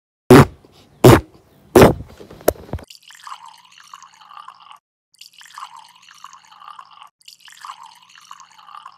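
Dripping-liquid sound effects: four loud, separate drops about two-thirds of a second apart, then a fainter trickling sound that repeats in short stretches with brief gaps.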